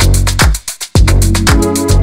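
Background music with a steady electronic dance beat: a deep kick drum and quick hi-hats.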